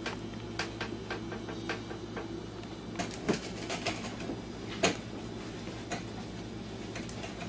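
Irregular light knocks and taps of a baguette, held crosswise in a small dog's mouth, bumping against a wooden kitchen shelf, the sharpest about three and five seconds in, over a steady low hum.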